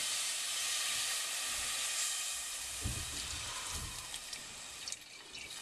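Milk poured into a hot saucepan of butter-and-flour roux, hissing and sizzling as it hits the hot pan, the hiss slowly dying down. A couple of soft low thumps come about three and four seconds in.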